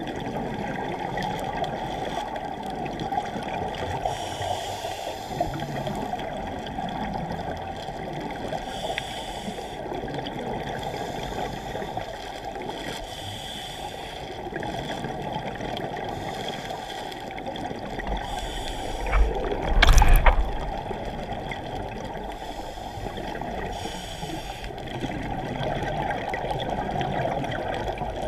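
Muffled underwater sound through a GoPro's waterproof housing: a steady rush and gurgle of water with a scuba diver's regulator breathing, a faint hiss every four to five seconds, and exhaled bubbles. About twenty seconds in, a louder short burst with a deep rumble.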